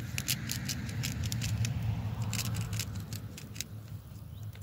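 Sharp crackles and pops from a venison steak grilling over the fire in a small folding grill, over a steady low rumble.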